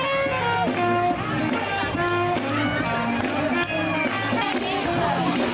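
Music with a singing voice and guitar over a steady bass line.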